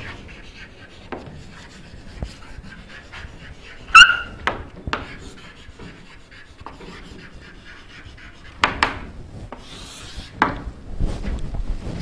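Chalk writing on a blackboard: short scratching and tapping strokes, with one loud, sharp squeak of the chalk about four seconds in and a longer scrape near the end.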